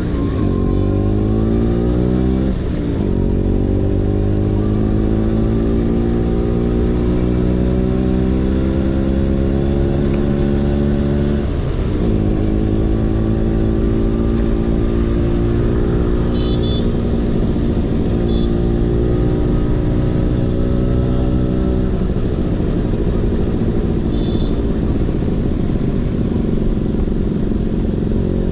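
Vespa PX 150's single-cylinder two-stroke engine running through a DRC Victory Racing aftermarket exhaust while ridden, pulling up through the gears. The engine note climbs steadily, drops with a gear change about three seconds in and again about twelve seconds in, then holds fairly steady.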